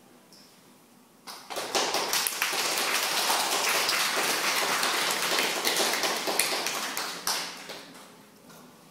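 A small audience applauding. The clapping starts abruptly about a second in, holds for about six seconds and dies away near the end.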